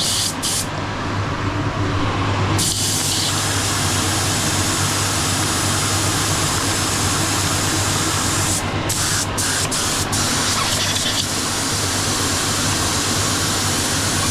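Spray gun being flushed out during cleaning: a few quick spurts, then long steady bursts of hissing spray, with a steady low hum underneath.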